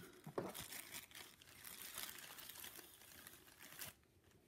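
Clear plastic bag crinkling faintly as it is opened and handled. The rustling stops about four seconds in.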